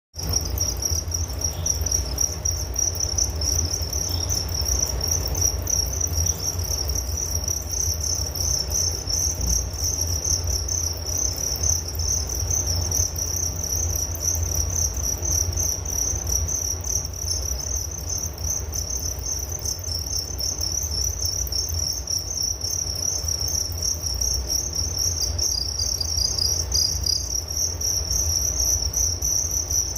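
Crickets chirping continuously in a steady, pulsing high-pitched trill, with a second cricket at a slightly lower pitch joining near the end, over a low background rumble.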